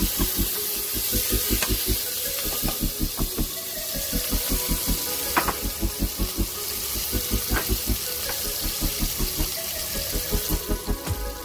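Chopped tomato, onion, garlic and ginger sizzling in hot oil in a pan while being stirred, with a few light scrapes of the spatula. Under the sizzle runs a fast, even low pulsing, about four or five beats a second.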